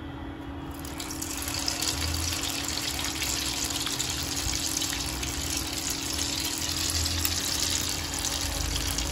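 Chhana malpua batter deep-frying in hot oil in a frying pan: a dense, crackling sizzle that starts about a second in as the batter goes into the oil, then holds steady over a faint low hum.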